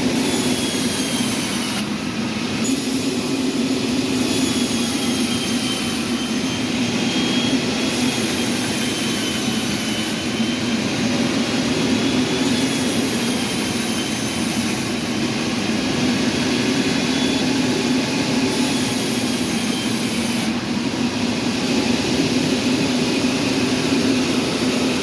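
Sawmill machinery running steadily: a continuous mechanical hum with a thin high whine over it and a hiss that comes and goes every few seconds.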